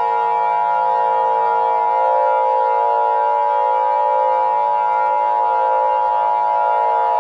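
Emergency alert attention signal: a steady electronic alarm of several held tones, the strongest near 1 kHz, sounding without change in pitch.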